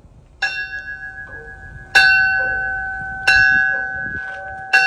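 Retired diesel locomotive's bell swung by hand, ringing four times about a second and a half apart. Each clang rings on into the next.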